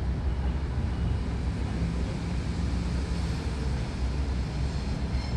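Steady low rumble of an electric multiple-unit train approaching from a distance, with no horn or brake sounds yet.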